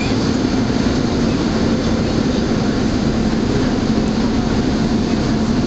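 SEPTA Route 10 subway-surface trolley running on its rails: a steady, loud rumble with a constant low hum under it.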